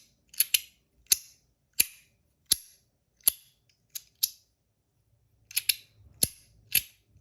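Compoform Astronaut Coin metal slider fidget being slid back and forth, each slide ending in a sharp, loud metallic click. There are about a dozen clicks at an uneven pace, some coming in quick pairs.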